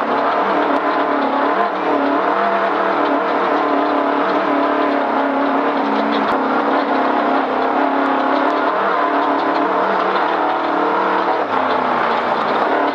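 Vehicle engine running on an off-road drive, its revs rising and falling unevenly, heard from inside the vehicle.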